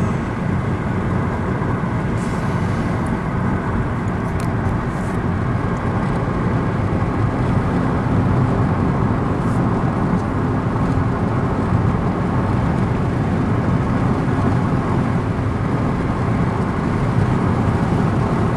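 Steady road noise inside a moving car's cabin: engine hum and tyre rumble at cruising speed.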